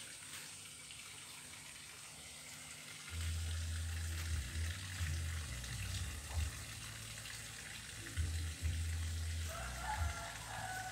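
Steady outdoor background hiss, with low rumbling on the phone's microphone from about three seconds in.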